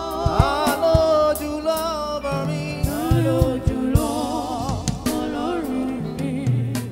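Live gospel band music: voices singing a wavering melody over a bass line and a drum kit keeping a steady beat.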